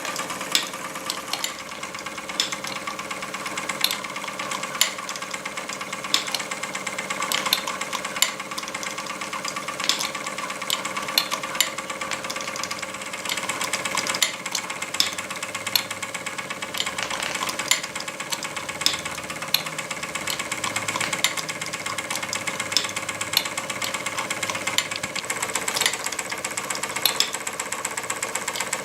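Tin toy blacksmith model driven by a live steam toy engine, Wilesco D16, running steadily. The engine and belt drive give a continuous mechanical whir and rattle, with a sharp tap about once a second from the hammer mechanism.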